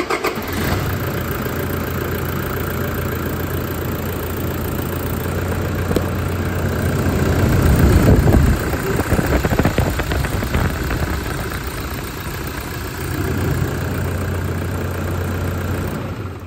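Toyota Hilux 2.5 D4D's 2KD-FTV four-cylinder turbodiesel idling steadily just after being started, sounding spot on with its new timing belt and tensioner. It is louder around the middle, heard close to the front pulleys and auxiliary belt, and it is switched off near the end.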